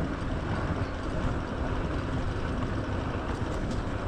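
Motorbike on the move: a steady rumble of engine, tyres and wind on the microphone.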